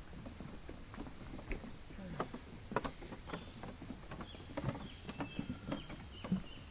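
Steady, high-pitched drone of a rainforest insect chorus, with irregular footsteps knocking and scuffing along the track.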